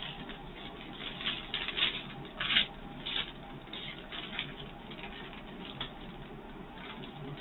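Small plastic bags of diamond-painting drills rustling and crinkling in irregular bursts as they are sorted through by hand. The crinkling is loudest between about one and three seconds in.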